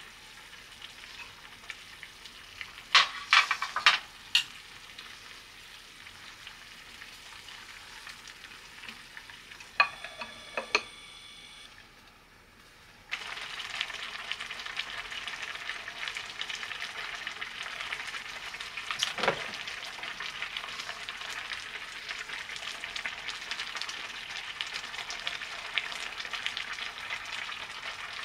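Soup bubbling and crackling in a pot on a gas burner, with a few sharp clinks of a metal spoon against the pot as the surface is skimmed. About thirteen seconds in the bubbling becomes louder and stays steady, with one more tap a little later.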